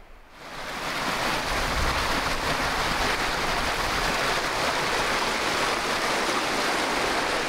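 Strong wind rushing through trees: a loud, steady hiss that builds over the first second and then holds, with a low rumble of wind buffeting the microphone.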